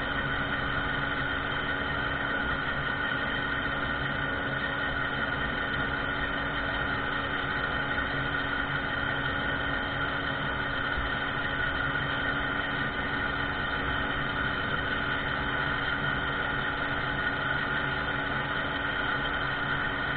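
Small two-stroke moped engine running at a steady pitch while riding, with rushing wind noise on the microphone.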